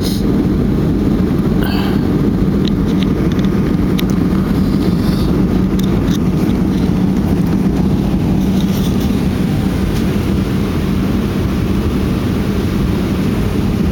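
Steady low rumble of an airliner's engines and rushing air, heard inside the passenger cabin, with a few faint ticks.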